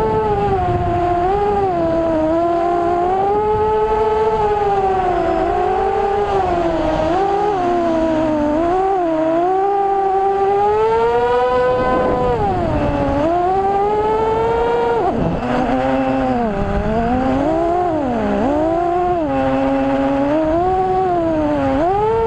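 FPV quadcopter's brushless motors and propellers whining. The pitch rises and falls continuously with the throttle, with deeper dips around the middle and again near the end.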